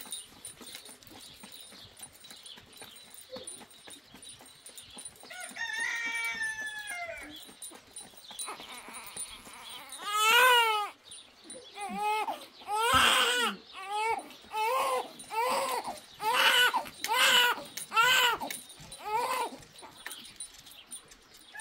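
A newborn baby crying in a string of short wails, about one a second, through the second half, stopping just before the end.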